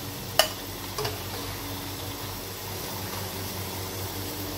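Hot oil sizzling steadily in a frying pan as fried bitter gourd slices are lifted out with a metal slotted spoon. A sharp clack of utensil on pan or plate about half a second in, and a lighter knock about a second in.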